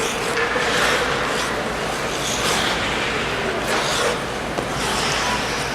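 Ice skate blades scraping and carving on rink ice in repeated short strokes, over the steady hubbub of an arena.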